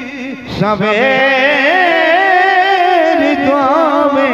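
A man singing a Punjabi devotional manqabat (praise poem) into a microphone. He ends a phrase and, after a brief break about half a second in, holds a long wavering, ornamented note.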